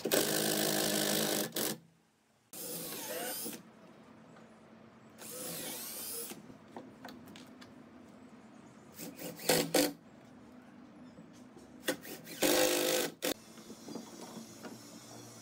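Cordless drill-driver driving screws into wood in short runs. There are about four runs of a second or so each, the motor's whine dipping and rising under load, with a few sharp knocks around the middle.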